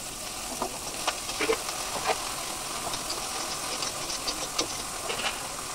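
Okra frying with onion and chilli in oil in a wok, with a steady sizzle, while a spatula stirs it, scraping and tapping against the pan in short irregular strokes.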